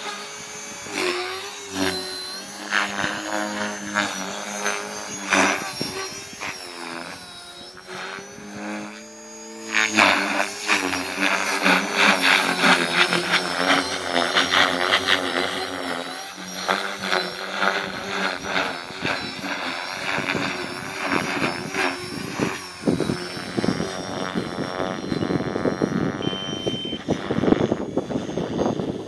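Align T-Rex 450L Dominator electric RC helicopter flying hard aerobatics: its brushless motor and rotor whine keeps rising and falling in pitch as the blades load and unload through the manoeuvres. It gets louder about ten seconds in.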